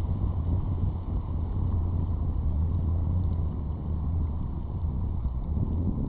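Steady low rumble of wind on the microphone over breaking ocean surf.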